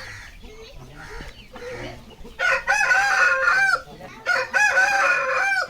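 Aseel rooster crowing: two long, loud calls of about a second and a half each, starting about two and a half seconds in. Softer chicken clucking comes before them.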